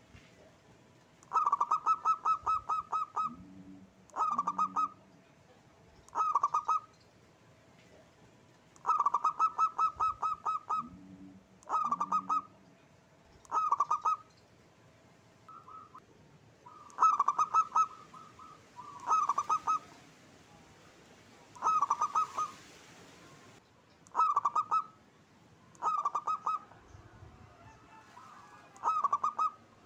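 Zebra dove (perkutut) cooing: about a dozen short phrases, each a quick run of staccato coos, with pauses of a second or two between them.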